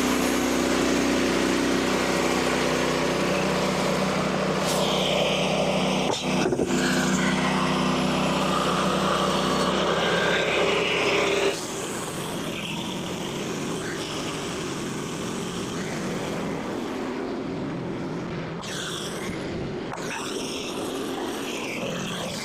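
Portable band sawmill's small gasoline engine running steadily at high speed. About eleven seconds in the sound suddenly drops in level and loses its steady low hum, turning rougher and noisier.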